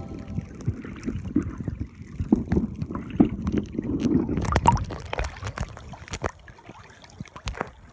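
Water sloshing and knocking around a phone in a waterproof case as it moves through the sea and breaks the surface: an irregular patter of clicks and splashes over a low rumble, busiest near the middle and thinning toward the end.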